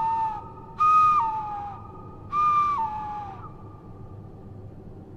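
A two-note engine whistle sounding twice, each a high note sliding down to a lower one, with a faint steady tone hanging on between the blasts.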